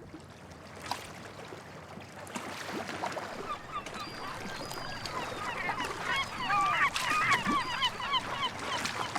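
A flock of birds calling: many short, overlapping calls that begin about three seconds in and grow denser and louder towards the end.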